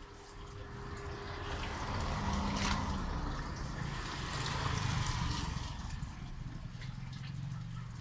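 Rain falling and dripping onto a wet street. A vehicle passes through the middle, its engine and tyre hiss swelling and then fading.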